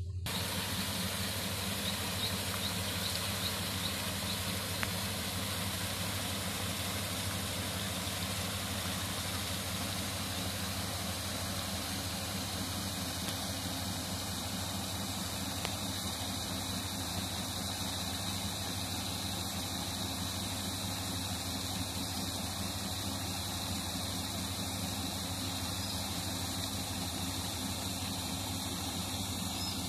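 Four-wheel paddlewheel aerator running on a fish pond. Its motor hums steadily while the paddle wheels churn and splash the water to aerate it.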